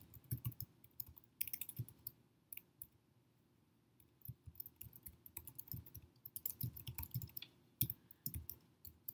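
Typing on a computer keyboard: irregular key clicks, with a pause of about a second partway through before the typing resumes.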